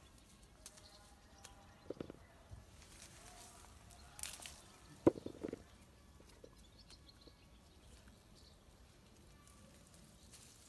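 Quiet rustling of leaves and branches as small plums are picked by hand from the tree, with a few short snaps of fruit pulled off the stems, the sharpest about five seconds in.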